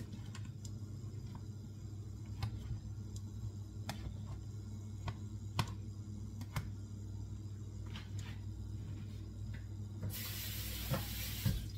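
Spatula knocking and scraping against a nonstick pot while fried rice is stirred: sharp ticks every second or so over a steady low hum. Near the end comes a short rush of running tap water.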